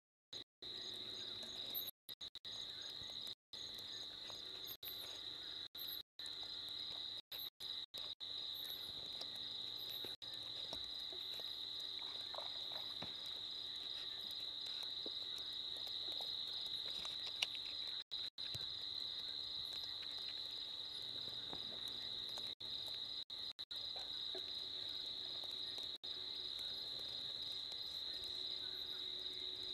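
Crickets trilling in a steady, high-pitched night chorus. The sound cuts out briefly many times.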